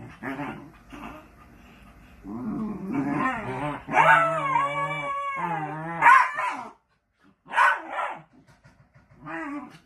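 Two miniature dachshunds play-fighting, growling and whining in wavering, drawn-out calls. The longest call runs for several seconds through the middle, followed by a few short yips.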